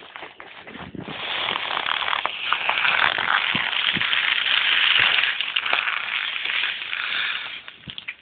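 Wind on the microphone on an open chairlift: a steady crackling hiss that starts about a second in and eases off near the end, with scattered clicks.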